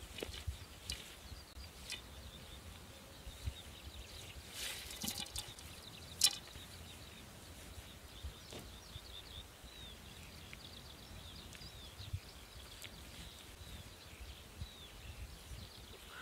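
Quiet open-field ambience with small birds chirping faintly and high, and scattered clicks and rustles from handling a bow and arrows; one sharp click about six seconds in is the loudest sound.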